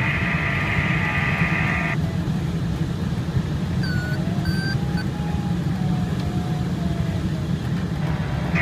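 Steady rushing airflow noise around the open cockpit of a Swiftlight ultralight glider in flight. A dense buzzing electronic tone cuts off about two seconds in and comes back at the very end, with a few short chirping tones in between.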